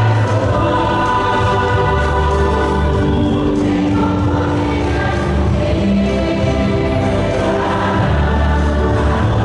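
A church congregation singing a hymn in chorus, many voices on long held notes.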